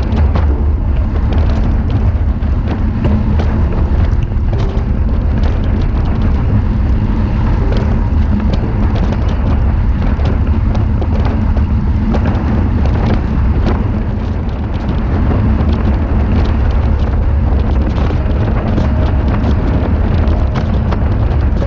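Heavy wind buffeting the microphone of a camera mounted on a road bike at riding speed: a loud, steady low rumble.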